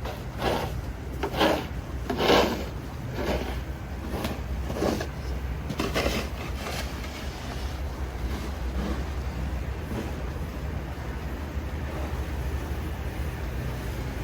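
Footsteps crunching in fresh snow at a walking pace, about one step a second, fading out after about seven seconds. A steady low rumble underneath.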